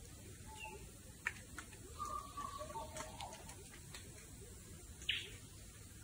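Rainforest birds calling in the early morning: scattered whistles and short sharp notes over a faint background hiss, the loudest a quick downward-sliding call about five seconds in.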